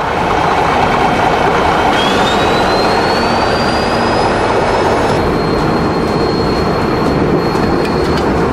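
Vintage Caterpillar crawler bulldozers running, a loud, steady mechanical din of diesel engines and tracks. About two seconds in, a high whine rises in pitch and then holds steady.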